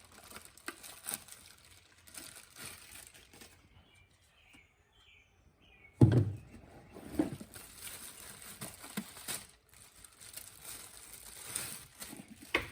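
Handling noise as power tools are taken out of their packaging: plastic and bag rustling with light clunks, and one sharp knock about six seconds in as something is set down.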